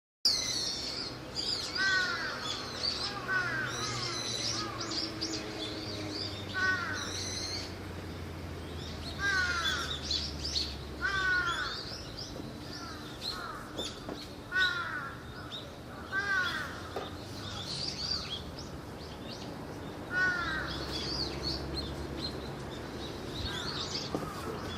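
Birds calling outdoors: a long series of harsh, falling caw-like calls, about one a second with gaps, over thinner, higher chirping from smaller birds.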